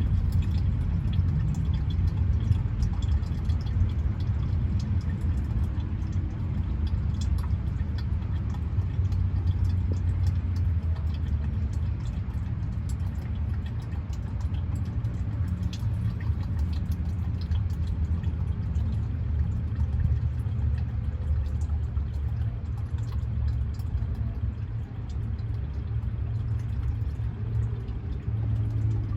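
Steady low rumble, with power steering fluid draining from a truck's filter housing into a jug.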